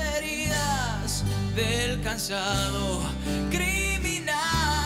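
A male voice singing a ballad over a rock band, with guitar and bass playing held low notes beneath the melody.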